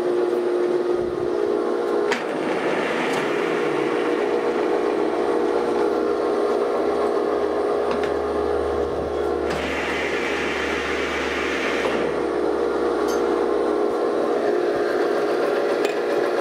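A 1938 geared-head lathe running with its empty, unclamped three-jaw chuck spinning: a steady motor hum and gear whine from the headstock.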